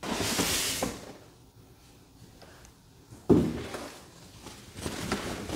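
Styrofoam packing tray scraping against the cardboard box as it is lifted out, then a single thump about three seconds in. Light rustling of the foam-sheet wrap around the monitor follows near the end.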